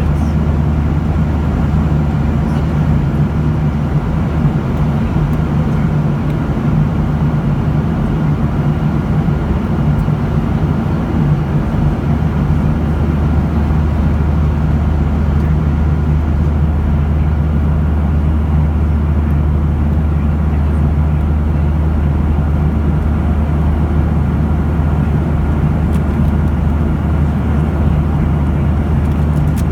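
Jet airliner in flight heard from inside the cabin beside a turbofan engine: a steady low hum under a constant rush of air.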